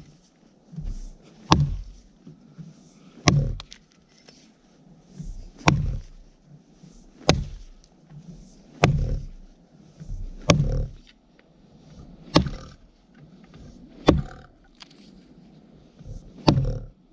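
Welland Vale True Temper fire axe chopping into a frozen spruce log: about nine sharp strikes, one every one and a half to two seconds.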